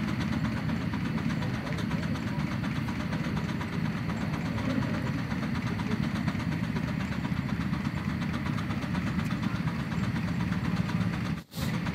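Miniature reproduction Case steam engine running steadily while it throws sparks from its stack. The sound drops out for an instant near the end.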